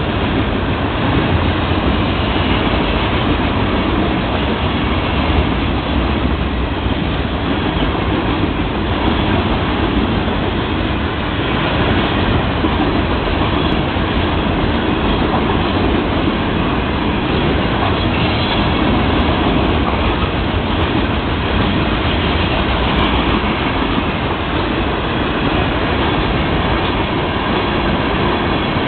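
Freight train cars rolling past close by at speed: a steady, loud rumble and rattle of steel wheels on the rails.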